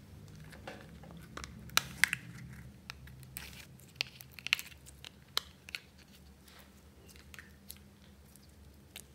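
Wet, sticky slime crackling and clicking as it is pressed into the makeup palette of a plastic compact and pulled back out, with the sharpest clicks about two seconds in and between four and six seconds in.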